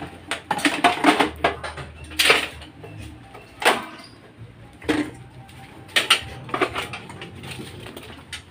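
Irregular knocks and clatters of hard objects being handled and knocked together, in scattered groups with short quiet gaps between.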